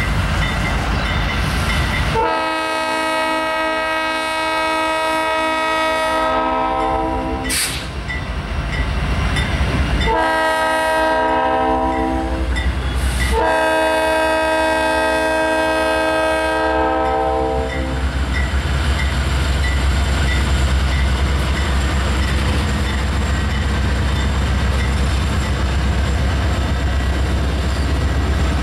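Diesel freight locomotive air horn sounding the grade-crossing signal: a long blast, a short one, then another long blast. A crossing bell dings steadily, and after the horn stops the locomotives' diesel engines rumble past with wheels clacking on the rails.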